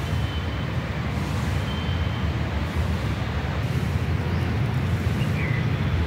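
Steady low rumble of outdoor background noise, with a brief faint high chirp about five seconds in.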